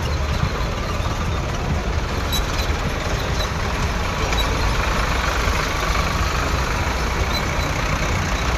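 Tractor engines running steadily in a convoy, a continuous low rumble with road noise and no single standout event.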